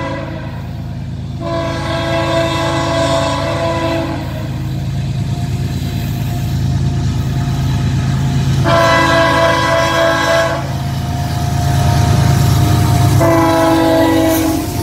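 A fouled Nathan K5HL five-chime horn on a CSX ES44AH locomotive sounds a brief note, then three long blasts, about 1.5, 9 and 13 seconds in. Its chord is sour because one chime is fouled. Under the horn, the diesel locomotives' rumble builds as they approach and is loudest as they pass, near the end.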